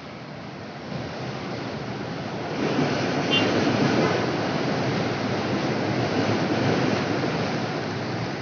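Rushing noise of a passing light-rail train, swelling about two and a half seconds in and holding steady.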